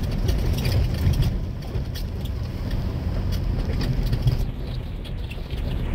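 A vehicle's engine pulling under acceleration, a steady low rumble with scattered knocks and rattles.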